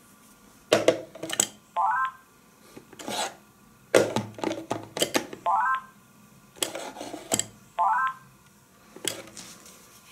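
A T-Com Sinus 400 DECT cordless handset set into its plastic charging cradle three times, each time with a clatter of clicks and knocks followed by a short rising series of beeps from the phone as it seats in the charger. Near the end there is another clatter as the handset is lifted out.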